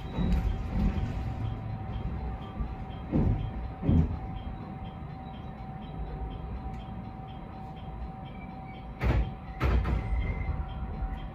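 JR West 221 series electric train running on the line, heard from inside the front car: a steady low rumble with a steady hum. Twice, a pair of heavy knocks comes as the wheels cross rail joints.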